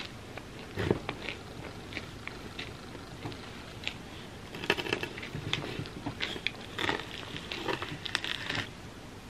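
Knife sawing through a giant chocolate-coated puffed-rice and peanut bar, the hard chocolate shell and crispy layer crackling and crunching in scattered clicks. The crunching grows busier in the second half and stops shortly before the end.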